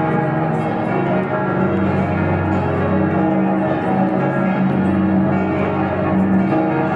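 Church bells of many churches ringing together across a city, their peals overlapping into a dense, unbroken wash of bell tones.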